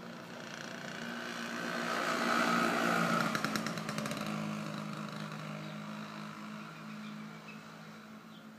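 A 1980 Bajaj scooter's two-stroke single-cylinder engine as the scooter rides past: the engine grows louder as it approaches, is loudest about three seconds in, then fades as it rides away.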